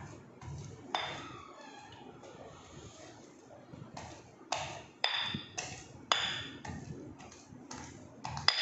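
A pestle striking a stone mortar while pounding fufu by hand. The strikes come irregularly, several in quick succession in the middle, and some give a short high ring.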